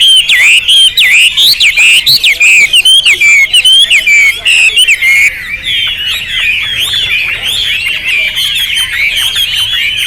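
Chinese hwamei singing at full volume: a fast, unbroken run of loud whistled notes that slide up and down; about five seconds in the song turns into a softer, denser twittering.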